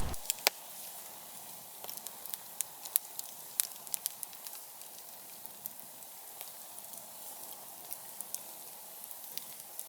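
Campfire burning low with sparse, irregular crackles and pops over a faint steady hiss.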